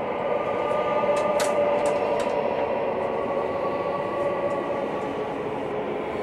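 A low, steady rumbling drone with faint held tones: the eerie ambient score of a horror film. A few faint clicks sound in the first two and a half seconds.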